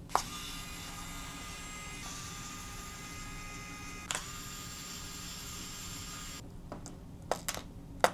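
Pen-style electric precision screwdriver whirring steadily as it drives out small screws in the phone's frame. There is a click as it starts, a slight shift in pitch about two seconds in and another click about four seconds in. The motor stops about six seconds in, followed by a few sharp clicks of handling near the end.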